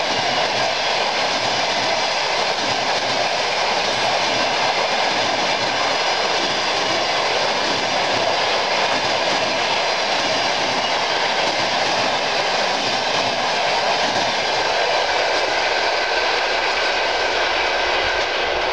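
Passenger train coaches passing close by: a steady, loud rushing noise of steel wheels rolling on the rails.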